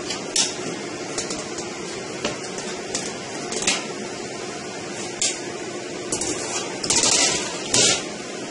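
Short metal clicks and scrapes as the latched sheet-metal top cover of a Dell PowerEdge R320 server is slid back and lifted off, the longest scrape near the end, over a steady background hum.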